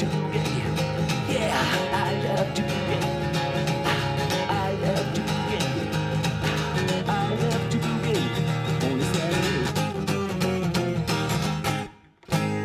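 Music with guitar, full and steady, that cuts out near the end, followed by one final struck chord left ringing.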